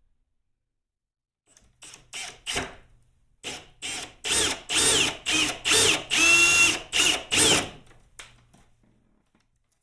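Power drill with a hole saw cutting into the golf cart's body panel, run in short trigger bursts that lengthen into longer runs, its motor whine rising and falling with each squeeze. It starts about a second and a half in and stops about two seconds before the end.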